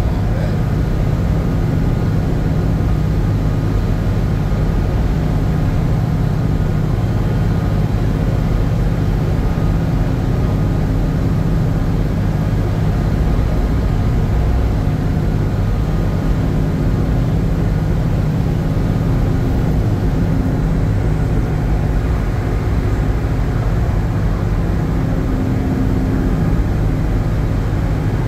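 Steady low drone of a fishing processor vessel's machinery, with a few faint steady tones above the low hum and no change in level.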